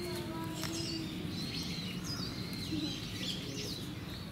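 Small birds chirping repeatedly in short, high calls over a steady low background rumble.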